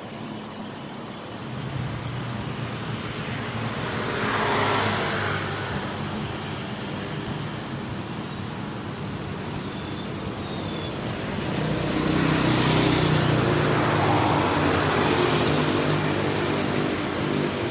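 Street traffic of motorcycles and cars, engines running steadily, with two louder vehicles passing about four seconds in and again from about twelve seconds.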